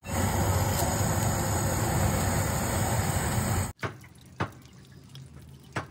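Gas burner flame rushing steadily and loudly while a whole chicken is singed in it; the sound cuts off abruptly a little past halfway. It is followed by a quieter stretch with a few short knocks.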